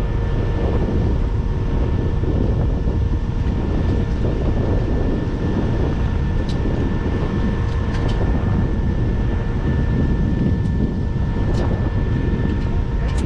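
T-33 jet trainer's turbojet engine running steadily: a continuous heavy rumble with a high whine over it.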